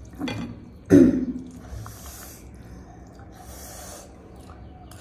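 Close-miked eating sounds of a person slurping spicy thukpa noodles off a fork and breathing sharply through the mouth. The loudest sharp intake comes about a second in, with hissing slurps near two seconds and again near four.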